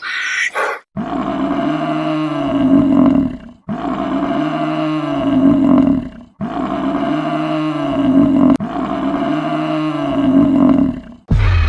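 A large animal's low, drawn-out call, repeated four times with the same rise and fall each time.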